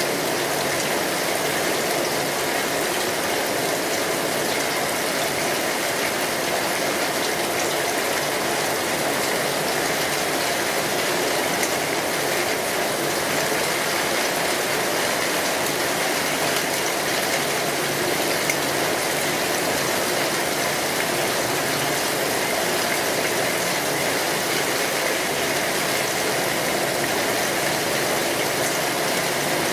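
Steady rain falling, an even hiss with a dense patter of drops that does not let up.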